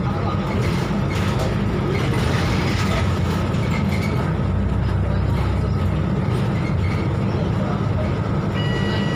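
Volvo B12BLE diesel bus engine running with road noise and rumble inside the moving bus's cabin. About eight and a half seconds in, a steady electronic beep starts and holds.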